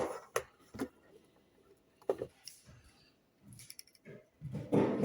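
Scattered light clicks and knocks from handling a wireless hooter's receiver unit while it is being switched into learning mode for pairing.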